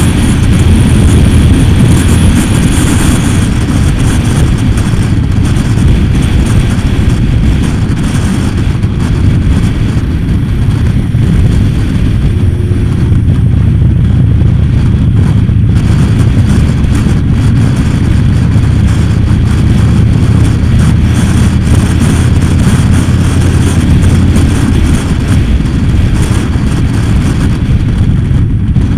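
Motorcycle riding at steady road speed: its engine running evenly under a strong rush of wind on the microphone.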